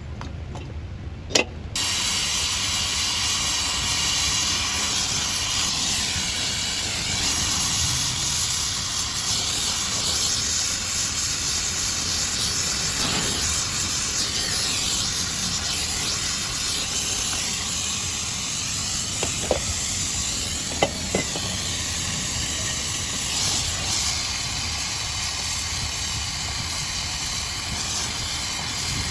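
Steady loud hiss that starts about two seconds in after a brief quieter moment, with a few faint clicks about two-thirds of the way through.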